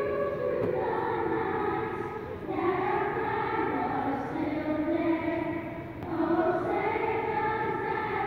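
Children's choir singing together in long, sustained phrases.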